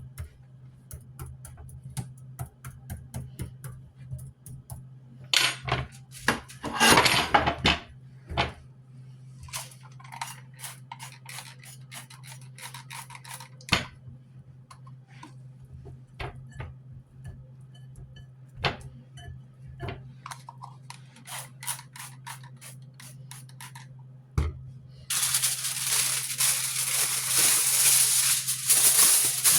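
Potatoes being washed at a kitchen sink: scattered knocks and clatters of potatoes against the sink and dishes, with a louder rush about six seconds in. In the last few seconds the tap runs loudly and steadily.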